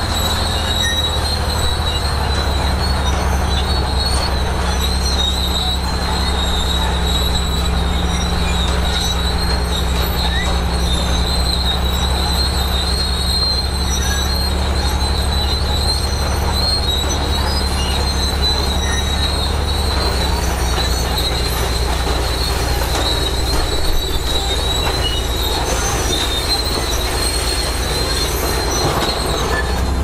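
Large crawler bulldozer working: its diesel engine runs steadily under load, and its steel tracks give a continuous high metallic squeal. The engine note drops slightly about two-thirds of the way through.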